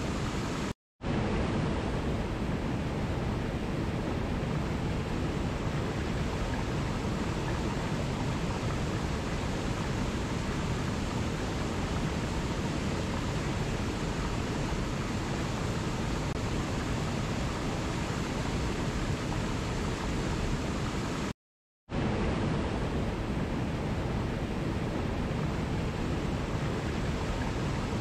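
Small waterfall and rushing mountain stream: a steady, even rush of water. The sound cuts out to silence for an instant twice, once near the start and once about three-quarters of the way through.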